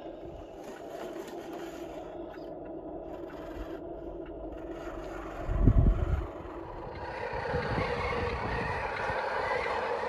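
Small electric motors of radio-controlled construction models whirring, with gravel scraping, growing louder from about seven seconds in. There is a brief low thump a little past halfway.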